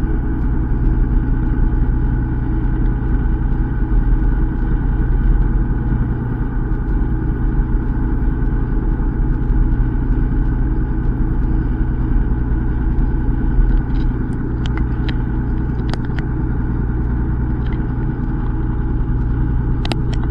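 Fishing boat's engine running with a steady low hum. A few short sharp clicks come in over the last few seconds.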